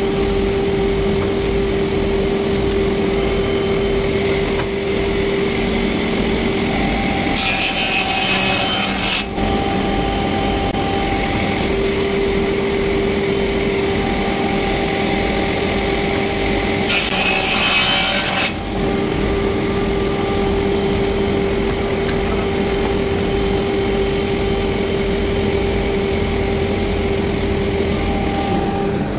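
A sliding table panel saw runs steadily with a constant motor hum. Twice the blade cuts through a pine board with a loud sawing rasp of about two seconds each: about seven seconds in, and again about seventeen seconds in.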